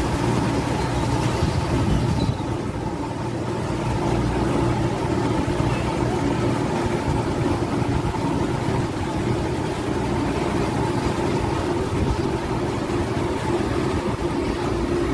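Steady drone of a ferry's engines: a constant low hum with a few steady tones over a rushing noise.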